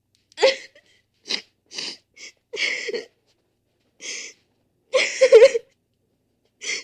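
A person crying: a string of short, breathy sobbing gasps and whimpers with pauses between them, the longest and loudest sob about five seconds in.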